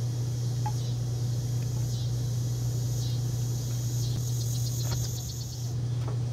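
Crickets chirping in a steady high chorus, over a loud, steady low hum.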